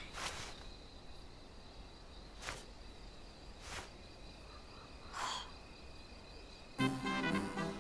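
Cartoon sound effects: four short soft puffs spread over several seconds, over a faint steady high insect-like trill. Near the end, jazzy music with brass comes in, louder.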